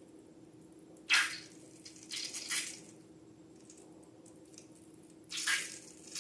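Wet slime squishing and dripping in short bursts: a sudden one about a second in, two shorter ones around two seconds in, and another near the end.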